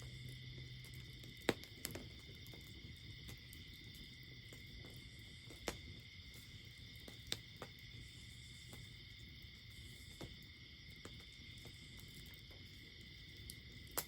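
Faint outdoor ambience on a rainy day: a steady, high-pitched chorus of calling insects or frogs, with a few sharp ticks of falling drops scattered through it.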